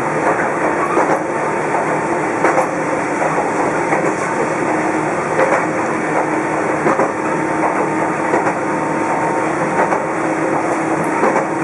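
Toyama Chiho Railway type 14768 electric train running along the line, heard from inside the car. There is a steady running noise with a faint hum, and the wheels click over rail joints about once every second and a half.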